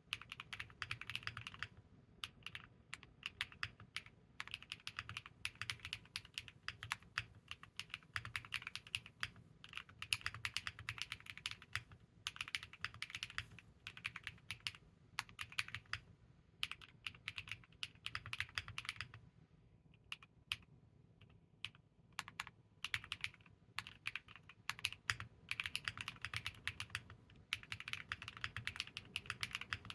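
Typing on a Moeetech Glitter65 mechanical keyboard with lubed MMD Princess switches and KPRepublic Ghost Judge Blue Samurai keycaps: fast, continuous runs of keystroke clacks, thinning to a few strokes in a short lull about two-thirds of the way through before picking up again.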